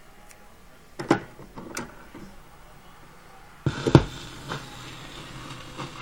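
Vinyl record on a turntable before the song starts: a couple of light clicks, then the stylus sets down with a thump about two-thirds of the way in. Steady surface hiss and crackle from the lead-in groove follow.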